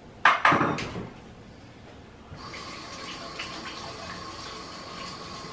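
A few loud knocks early in the first second, then a kitchen tap starts running steadily about two and a half seconds in, with water splashing over hands being washed.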